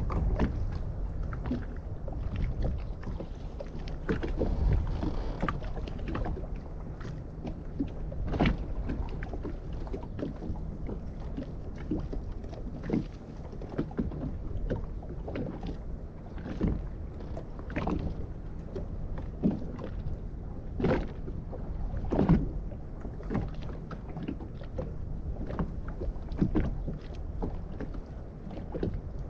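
Choppy sea water slapping and splashing against the hull of a small boat at irregular intervals, over a steady low rumble of wind on the microphone.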